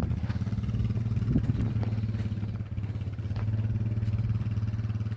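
A Dodge pickup's engine driving an old sawmill, running at a steady speed with a low drone. A few sharp clicks and knocks sound over it.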